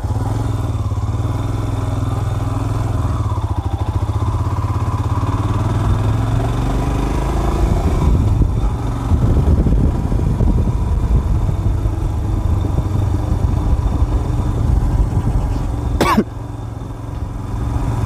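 Motorcycle engine running steadily while riding, with low rumbling wind noise building on the microphone about halfway through. Near the end a single sharp click, after which the sound drops somewhat.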